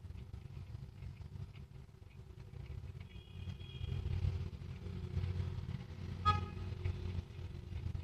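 Low steady rumble of background noise. About three seconds in there is a faint high tone, and just after six seconds a short, louder pitched beep.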